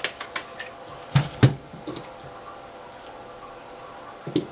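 Light clicks and taps of electronic parts being handled, with two dull knocks a little over a second in as the 12.1-inch LCD panel is set down on the bench mat, and one more knock near the end.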